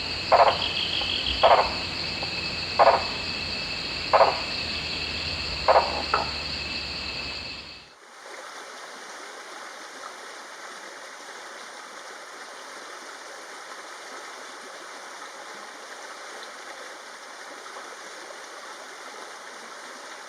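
Blue-bearded bee-eater giving its gruff, croaking call, short notes repeated about every second and a half, over a steady high insect drone. About eight seconds in, the calls and drone cut off and a steady even hiss carries on.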